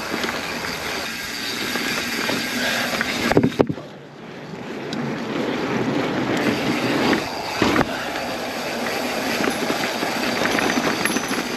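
Mountain bike riding down a rough trail: a steady rushing noise with the bike rattling, and two sharp knocks, one about three and a half seconds in and one near eight seconds in.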